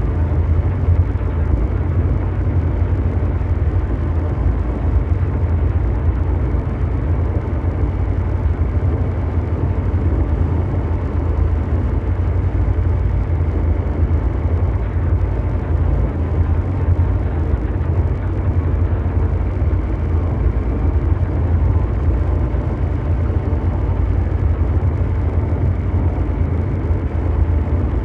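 Continuous mechanical drone noise in the manner of brown noise: a steady, loud, unchanging hum heaviest in the deep bass, with a softer hiss above it and no breaks.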